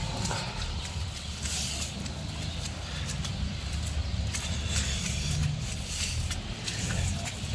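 Street traffic on a wet, slushy road: car engines and tyres on slush, heard as a low steady rumble.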